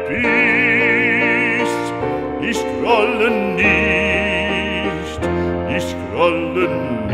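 Background music: a classically trained voice singing a German art song with piano accompaniment, in long held notes with wide vibrato.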